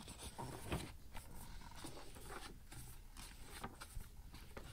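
Pages of an old hardbound book being turned by hand: faint paper rustling in a string of short, irregular rustles and soft ticks.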